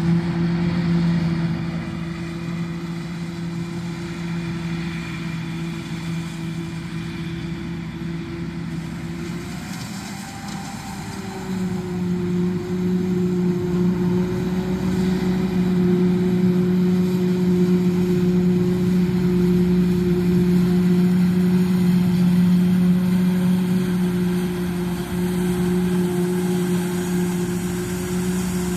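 Engine of heavy corn silage harvest machinery running steadily with a deep hum. About ten seconds in it sags, then comes back slightly higher in pitch and louder.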